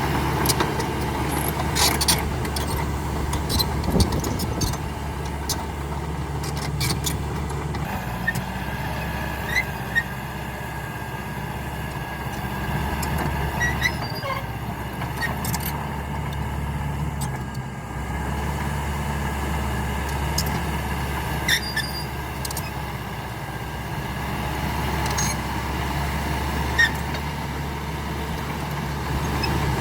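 CAT D5K XL bulldozer's four-cylinder diesel engine running steadily while working, with scattered sharp clanks and knocks throughout.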